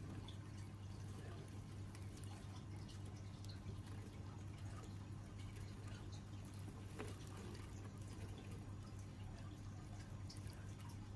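Quiet room tone: a steady low hum with a few faint clicks, one a little clearer about seven seconds in.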